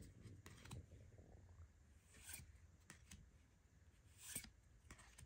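Near silence with a few faint, scattered rustles and soft taps of trading cards being handled and set down.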